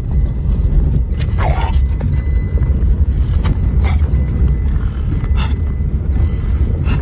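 Wind buffeting and road rumble through an open car window while the car drives along, with a few brief crackles on top.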